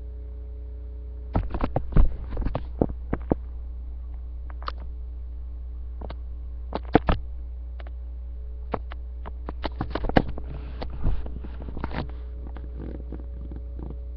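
Steady low electrical hum from a webcam microphone, with scattered knocks, taps and rustles of movement on bedding right against it. The knocks come in irregular clusters, the loudest ones a couple of seconds in, about halfway through and again a few seconds later.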